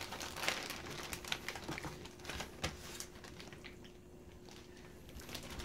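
Faint crinkling and rustling of a plastic zip-top bag as raw liver slices are laid into it, with scattered soft clicks and taps of handling that thin out in the second half.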